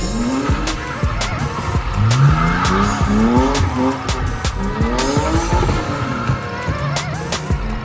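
Car engine revving hard in repeated rising sweeps, each climbing and then cutting off, as the car drifts, with tyres squealing and skidding.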